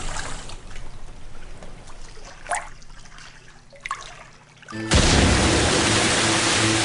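Water hissing and trickling, dying down to two brief drip-like sounds, then a sudden loud rush of noise with music coming in about five seconds in.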